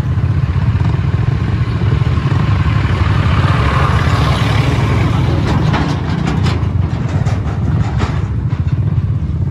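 Motorcycle on the move, its engine and road noise under a heavy low rumble, with a run of clattering knocks about six to eight seconds in.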